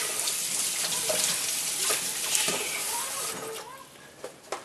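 Water running from a tap for about three and a half seconds, then stopping, followed by a few faint clicks.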